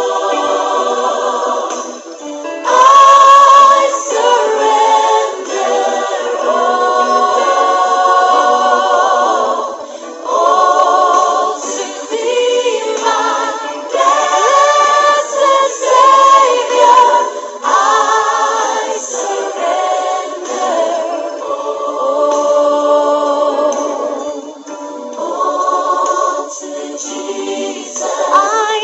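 Choir singing, the voices holding long wavering notes in phrases a few seconds long.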